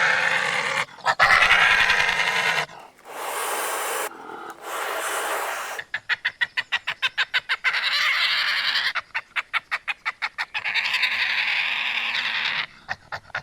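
Badger calling: loud breathy hisses and pants broken by two runs of fast, rapid pulsing chatter.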